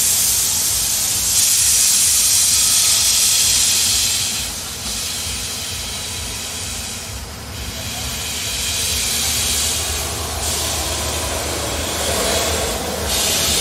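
Steam hissing loudly from a standing narrow-gauge steam locomotive, in spells of a few seconds broken by brief dips.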